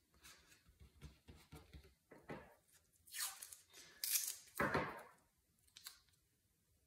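Masking tape being torn and pressed down onto paper: a series of short rips and rustles, the loudest about three to five seconds in.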